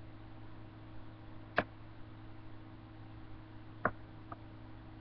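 A steady low hum of room tone with three short clicks: one about one and a half seconds in and two close together near the end.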